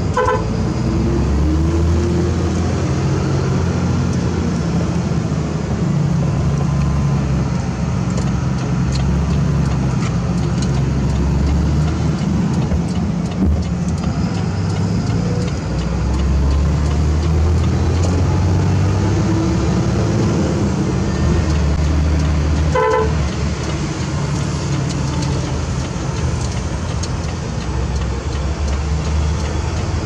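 UD Trucks Quester dump truck's diesel engine running in the cab while driving, its note rising and falling every few seconds. A horn toots briefly at the start and again about two-thirds of the way through.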